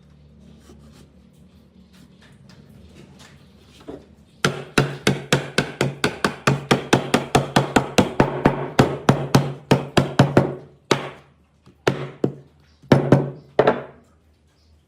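Hammer blows on wood: a fast, even run of about five strikes a second for some six seconds, then a few slower scattered blows, each with a low hollow ring from the board.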